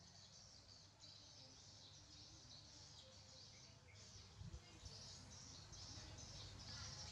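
Near silence: faint high-pitched chirping in the background over a low rumble, with a couple of soft low thumps about halfway through.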